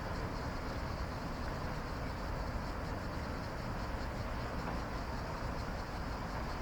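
Night ambience: a steady, high, slightly fluttering chorus of cicadas over a steady low rumble.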